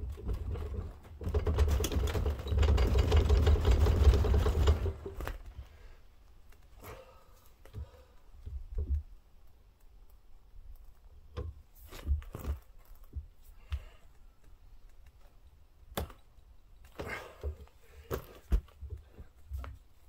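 A dense run of rapid mechanical clicking and rattling for about four seconds near the start, then scattered single knocks and clinks.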